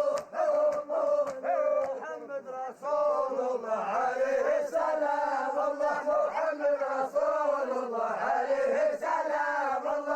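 Sufi dhikr chanting: a group of voices repeats a short phrase over and over in a pulsing rhythm, about two pulses a second, that runs into a denser, more continuous chant from about three seconds in.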